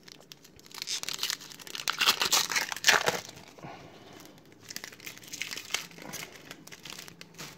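Foil wrapper of a 2017-18 Donruss basketball card pack being torn open and crinkled by hand, loudest between about one and three seconds in, then softer crinkling near the end.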